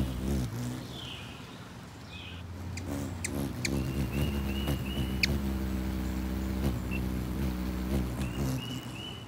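Ruby-throated hummingbird wings humming as the bird hovers close at the feeder, a low buzzing hum that dies away about a second in and comes back strongly as an adult male flies in. A few short, sharp high ticks and a thin high steady tone come and go over it.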